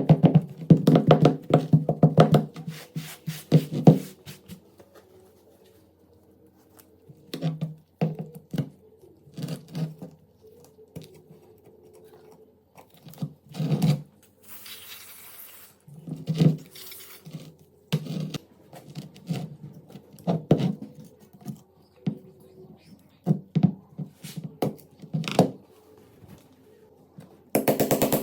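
Irregular knocks, clicks and taps of hand work on a pistol's metal parts, with bursts of rapid clicking near the start and end and a short hiss about fifteen seconds in.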